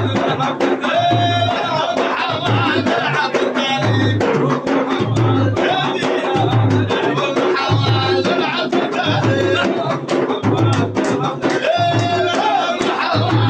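Sudanese Sufi madih music: hand drums beating a steady repeating rhythm of low strokes and sharp slaps, under a group's voices.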